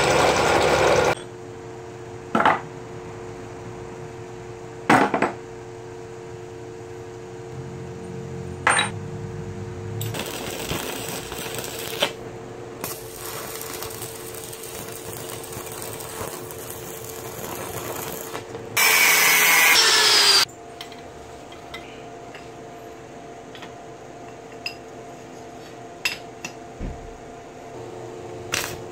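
Steel fabrication: a drill press boring into steel at the start, sharp metal knocks, then the crackle of an arc welder through the middle, a short loud burst of a power tool about two-thirds of the way in, and scattered clanks of steel parts near the end. A steady hum runs underneath throughout.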